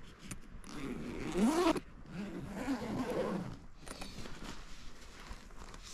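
Zipper of a hard-shell camera backpack being pulled open in two long rasping runs, the first starting about half a second in and the second ending a little past the middle, its pitch sliding up and down as the pull moves along the shell.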